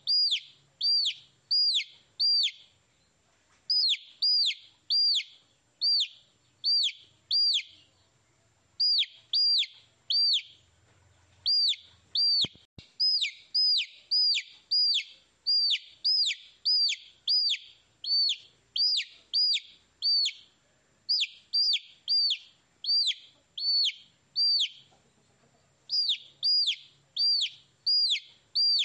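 Baby chicks peeping: loud, evenly spaced chirps, each falling sharply in pitch, about two a second in runs of several with short breaks.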